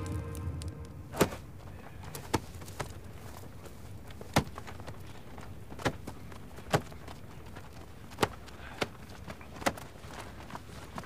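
Music fading out, then sparse, irregular sharp knocks and thuds, about ten over the following seconds, over a low background hiss.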